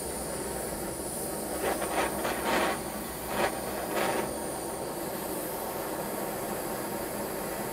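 Handheld gas torch flame hissing steadily as it heats a hardened steel punch to temper it to blue. A few short, louder rushes of noise come between about one and a half and four seconds in.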